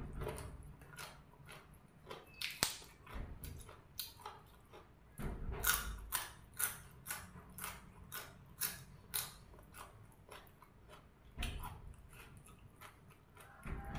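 A person chewing crisp raw vegetables close to the microphone: a run of sharp crunches, about three a second. A rooster crows faintly near the end.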